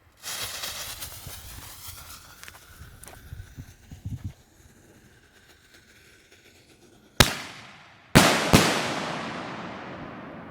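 A fuse hisses for about two seconds. Then, about seven seconds in, a 1.75-inch double-salute peanut shell is launched from its mortar with one sharp bang. About a second later come two loud salute reports in quick succession, which echo and fade away slowly.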